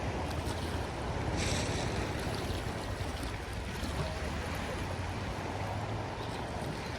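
Sea waves washing with wind buffeting the microphone; a short splash of water about a second and a half in.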